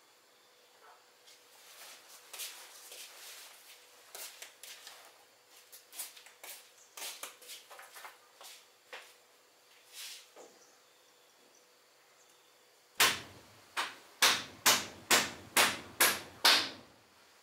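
Hammer blows, about eight loud strikes at roughly three a second near the end, as when nailing wooden boards, after several seconds of lighter scattered knocks and rustling.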